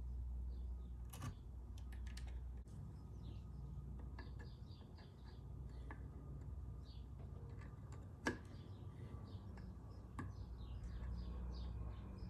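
Small sharp clicks and taps of a tool against the Xbox One controller's joystick solder pins as each is checked for looseness, the strongest about eight seconds in. Under them is a steady low hum, with faint short high chirps scattered throughout.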